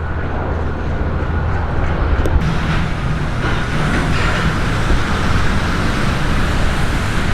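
Road traffic noise, with a vehicle's rumble giving way about two seconds in to a louder rushing of passing traffic.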